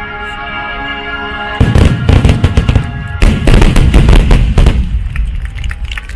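Music with held tones plays, then about a second and a half in a fireworks display sets off two rapid waves of dense cracks and deep booms that cover the music, fading near the end.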